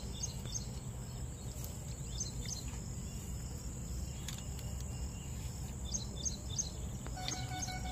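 Countryside pond-side ambience: a steady high insect drone with groups of short bird chirps, over low wind rumble. A steady held tone comes in near the end.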